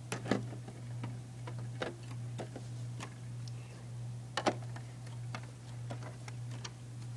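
Irregular light clicks and taps of hands handling plastic Lego bricks, over a steady low hum; the sharpest pair of clicks comes about four and a half seconds in.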